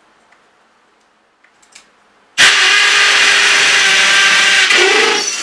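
Cordless hammer drill boring into a hollow concrete block with a masonry bit. It starts abruptly about two and a half seconds in and runs loud and steady, with a brief change in pitch near the end.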